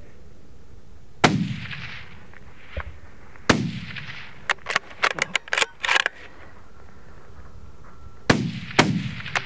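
Rifle shots, four loud cracks spaced unevenly, each trailing off in a long rolling echo, with the last two about half a second apart. Between them comes a quick run of sharp clicks.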